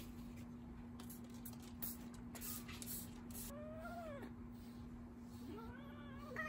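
Long-haired cat giving two drawn-out complaining meows, each rising then falling in pitch, about three and a half and five and a half seconds in, as it is held and groomed. Before them, a grooming brush rasps through its fur in short strokes.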